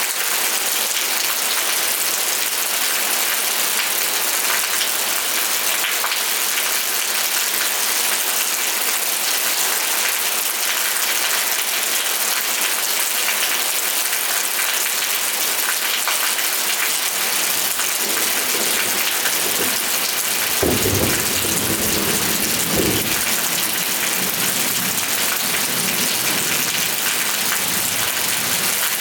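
Steady rain falling, an even hiss of many drops. About two-thirds of the way through, a low rumble of thunder rolls in underneath for several seconds, then fades.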